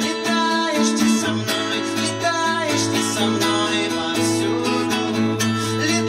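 A band playing a song: an acoustic guitar strums over a sustained bass line, with regular drum and cymbal strokes.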